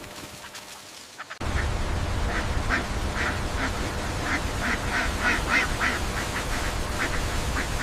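Ducks quacking in a rapid run of short calls, about three or four a second. From about a second and a half in, a steady low rumble sits under them.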